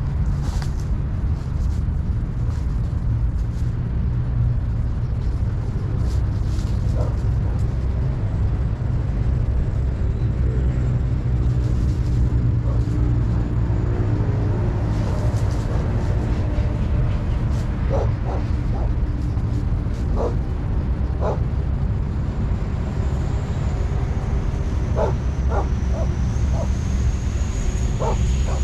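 A dog barking in short, separate barks, in two runs: one about two-thirds of the way through and another near the end. A steady low rumble runs underneath.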